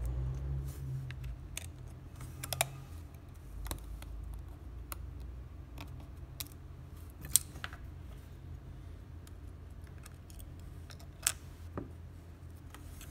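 Scattered small clicks and light scrapes of a pry tool working under a phone's charging-port board and lifting it out of the plastic frame. Two sharper clicks come about seven and eleven seconds in.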